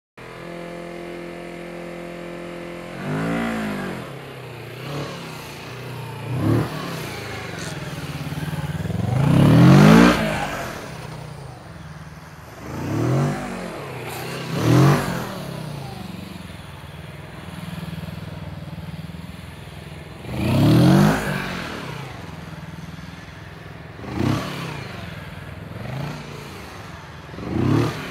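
Kawasaki Ninja 650's parallel-twin engine idling steadily, then revving up and dropping back about ten times in short bursts as the motorcycle is thrown through tight low-speed turns; the biggest revs come about ten and about twenty-one seconds in.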